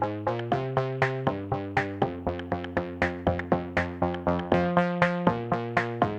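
Instrumental synthesizer background music: a steady run of plucked notes, about four a second, over held lower notes that change pitch a few times.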